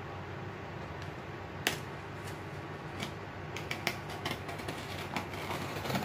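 Electric fan running steadily, with hands handling a cardboard parcel and working at its packing tape: a sharp click a little under two seconds in, then a run of small clicks and scrapes in the second half.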